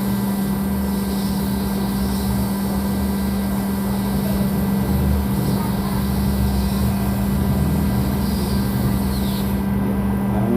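Hot air rework station's blower running steadily with a constant low hum, heating a phone's USB Type-C connector to melt its solder and lift it off the board.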